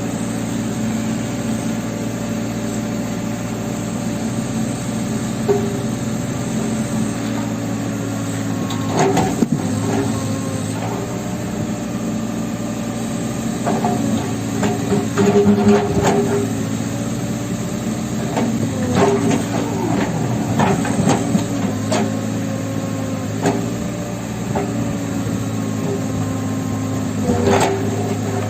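New Holland backhoe loader's diesel engine running steadily under load. Several clusters of sharp knocks and clatter sound through it, from concrete being broken and falling as the backhoe bucket works the wall.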